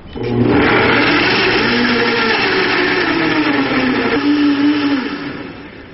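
K-Tec Champ HP3 high-speed countertop blender running, puréeing raw zucchini chunks into a smooth soup. It starts a moment after the beginning, runs loud and steady, then winds down and stops about five seconds in.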